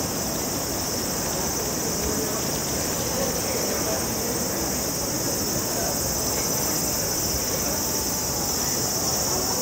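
Steady, high-pitched chorus of insects over a low background hum of city noise.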